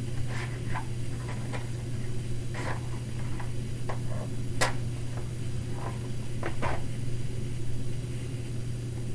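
Steady low hum with small handling clicks and rustles as a cigarette is lit, with a sharp click about four and a half seconds in and a short scratchy sound about six and a half seconds in.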